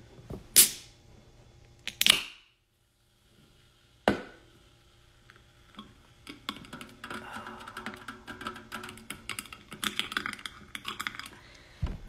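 Long fingernails tapping, flicking and scratching on an aluminium sparkling-water can. Three sharp clicks in the first four seconds, then a quick run of light taps for most of the second half.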